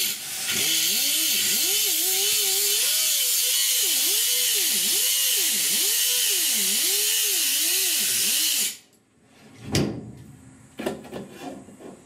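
A power tool runs for about nine seconds with a loud hiss, its tone rising and falling over and over, then cuts off suddenly. A few sharp knocks follow near the end.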